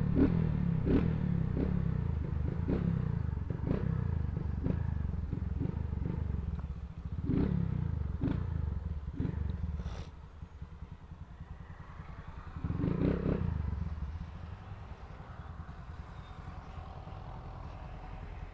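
Small motorcycle engine with an aftermarket exhaust running at low speed, with sharp pops about once a second in the first half, a brief louder rev about two-thirds of the way in, then settling to a quieter, steadier running.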